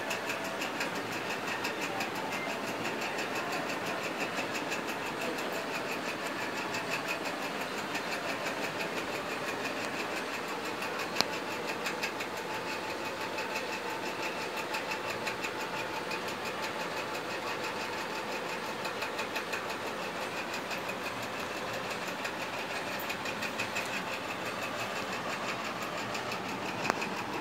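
A machine running steadily, with a fast, even ticking rattle.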